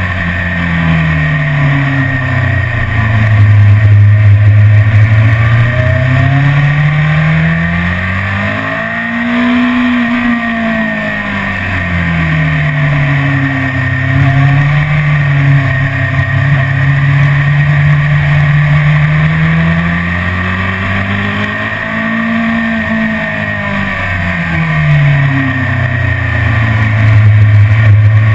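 BMW S1000RR inline-four engine running at track speed under steady wind rush. The engine pitch climbs and falls back twice, about ten seconds in and again about twenty-two seconds in.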